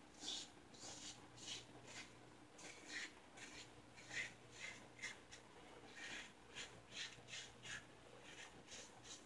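Merkur 34C double-edge safety razor with a Gillette Silver Blue blade scraping stubble through shaving lather in quick short strokes, about two a second. Faint, crisp rasping.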